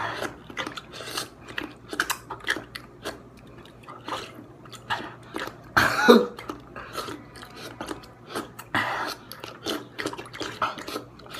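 People lapping water from bowls with their tongues like dogs: a run of quick, irregular wet licking and slurping clicks. About six seconds in, a short louder voice sound, like a cough or a laugh, breaks in.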